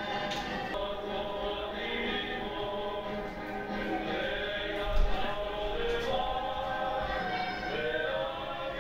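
A choir singing, many voices holding and moving between sustained notes, with a brief low thump about five seconds in.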